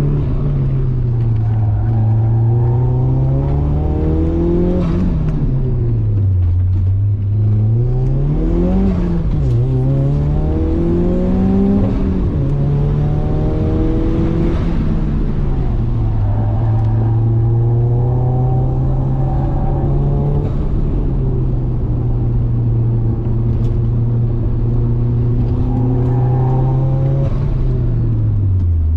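Turbocharged Ford Laser TX3's four-cylinder engine being driven hard: the pitch climbs, drops sharply and climbs again several times in the first half as it is accelerated and shifted, then holds nearly steady for about ten seconds before dropping near the end.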